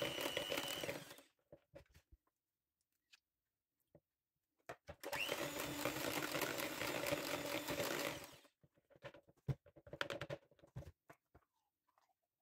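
Electric hand mixer whisking butter with boiled sweetened condensed milk into a cream: it runs with a steady whine for about a second, stops, then starts again about five seconds in with a rising whine as it spins up and runs for about three and a half seconds. Light clicks and taps come in the pauses.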